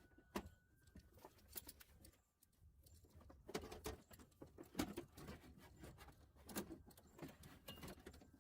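Faint, scattered clicks, knocks and rattles of a truck's replacement window regulator assembly bumping against the door shell as it is worked in through the door's rear opening.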